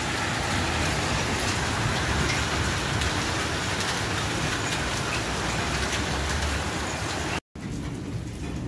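Hailstones pelting down on concrete paving in a dense, steady patter of small impacts. Near the end the sound cuts out for an instant, then comes back quieter.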